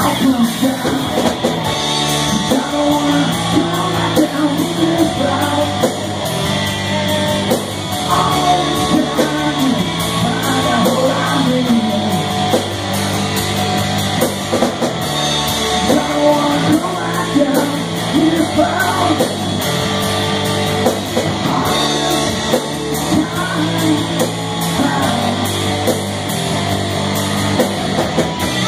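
Live rock band playing loud and steady: electric guitar, electric bass and a Pearl drum kit.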